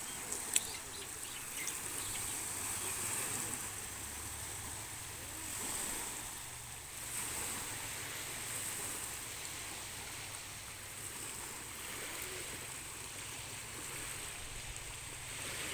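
Small waves lapping steadily on a pebbly beach, an even wash that swells gently a couple of times, with two sharp clicks near the start.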